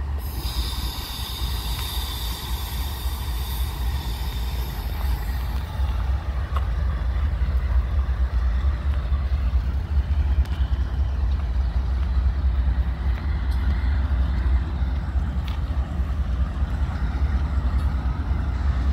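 Norfolk Southern diesel locomotives' engines running with a steady low rumble, growing a little louder about six seconds in. A high, thin whine sounds over the first five seconds.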